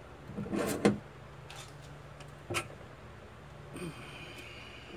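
Hand-operated long-handled pop rivet tool being fitted onto a rivet and worked: a few separate metal clicks and knocks, one just under a second in and a sharper one about two and a half seconds in, with a brief faint squeak near four seconds.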